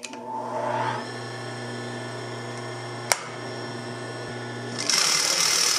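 Industrial sewing machine motor humming steadily, rising in pitch over the first second, with a single click about three seconds in. Near the end the belt-driven bobbin winder spins up, adding a louder, even whirring hiss as thread winds onto the bobbin.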